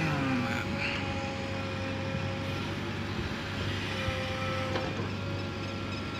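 JCB 3DX backhoe loader's diesel engine running steadily under working load, with a steady high hydraulic whine over the low engine hum as the backhoe arm swings and digs. The pitch drops briefly at the start as the bucket finishes tipping.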